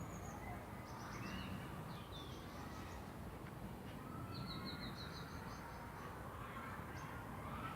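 Small birds chirping, with short high trills throughout and a quick run of repeated notes about halfway through, over a steady low background noise.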